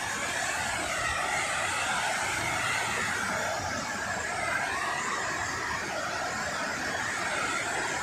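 Steady rushing of a multi-tiered waterfall pouring into its plunge pool.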